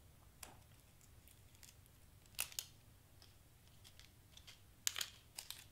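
Faint, scattered small clicks and crinkles of hands working with cardstock and Zots glue dots, with a sharper pair of clicks about two and a half seconds in and another cluster near the end.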